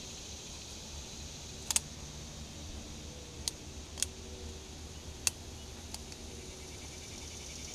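A handful of sharp clicks and taps from oil-filter parts being handled: a quick double click about two seconds in, then single clicks over the next few seconds. Behind them runs a steady, high insect chirring.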